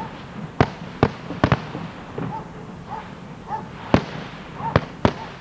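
Aerial firework shells bursting in a professional display: about seven sharp bangs at irregular intervals, two of them close together about one and a half seconds in, over a steady hiss.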